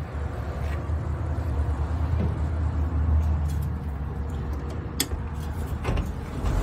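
Cummins 6BTA turbo-diesel inline-six of a 1999 Ottawa Commando 30 yard truck idling steadily, with two sharp clicks about five and six seconds in.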